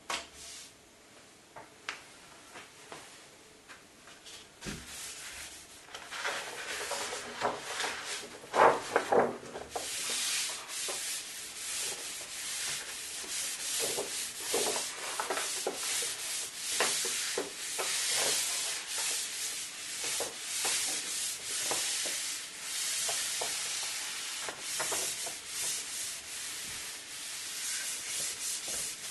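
Cloth rubbed in repeated strokes over a printed foil sheet, smoothing it onto chipboard coated with wallpaper paste. The first few seconds hold only light handling rustles, a loud crackling comes about eight to nine seconds in, and steady rubbing strokes follow from about ten seconds.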